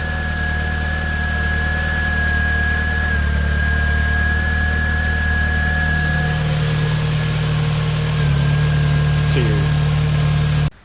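VW Golf Mk4 GTI's 1.8-litre turbocharged four-cylinder AGU engine idling steadily, now running smoothly with a new ignition amplifier fitted, the misfire cured. The sound cuts off abruptly near the end.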